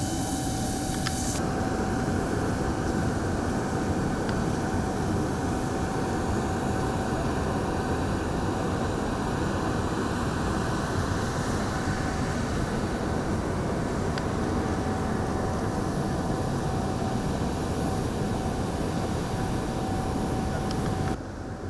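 Jet airliner's turbines running on the apron: a steady whine over a broad rumble. The sound cuts off abruptly just before the end.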